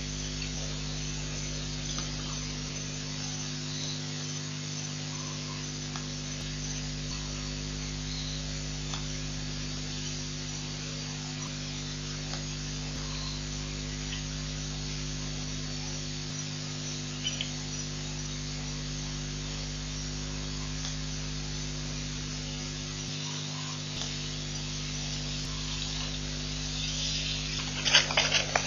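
Steady electrical hum with a background hiss from a live webcam's audio feed. A few faint short calls come through it. Near the end, a burst of loud, irregular animal-like sounds begins.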